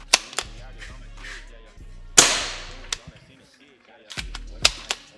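ASG Steyr Scout spring-powered bolt-action airsoft rifle fired once through a chronograph, a sharp shot about two seconds in with a fading tail. Clicks of the bolt being worked come just before the shot and again near the end.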